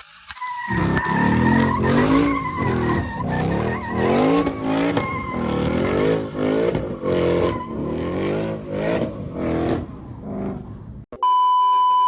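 Car doing a burnout: the engine revs up and down over and over while the tires squeal steadily, then stops abruptly about eleven seconds in. A loud, steady electronic beep follows near the end.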